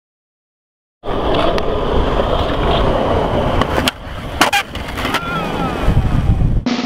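After a second of silence, skateboard wheels roll on concrete with a steady rumble. About four seconds in the board snaps and clacks sharply as a trick is popped and landed, and the rolling goes on.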